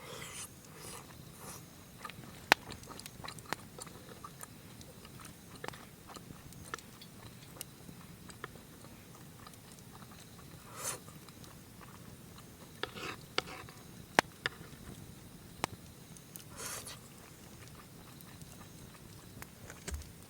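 Wood campfire crackling with scattered sharp pops, and a few short crunching bites and chewing of grilled food.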